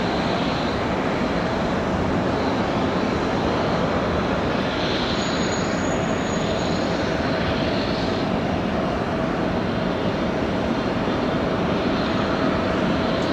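Twin turbofan engines of a Boeing 777-300ER taxiing, a steady jet rumble and hiss with a faint steady whine.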